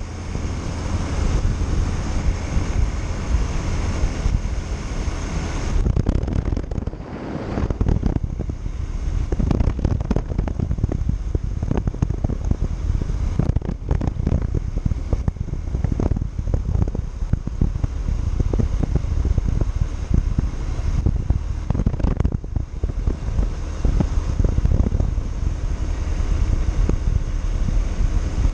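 Wind buffeting and crackling on the microphone of a motorcycle under way, with the bike's running engine beneath it.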